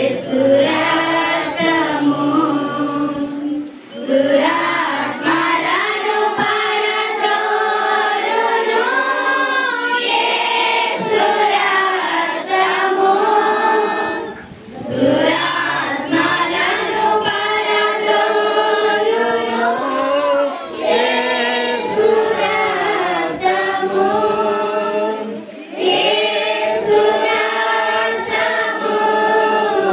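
A congregation of mostly women's voices singing a Christian song together without instruments, in long phrases with brief pauses about every ten seconds.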